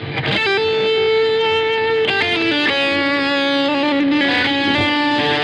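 Squier Bullet Stratocaster electric guitar with overdrive playing a lead line of long sustained notes that slide and bend between pitches, over a backing track.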